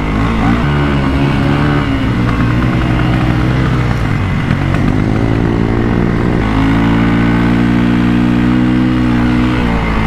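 Motorcycle engine running hard under throttle as it is ridden through loose beach sand, its revs held steady and then stepping up and down several times.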